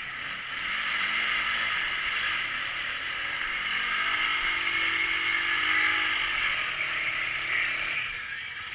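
Side-by-side UTV engine revving under load, its pitch rising and falling, over a steady rushing noise, as the machine pushes through deep mud and water.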